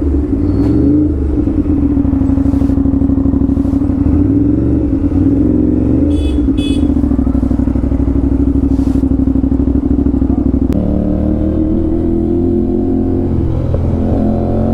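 Aprilia RS 457 parallel-twin running through an SC Project full-system exhaust at low, steady revs, then picking up revs sharply about eleven seconds in. Two short high beeps sound about six seconds in.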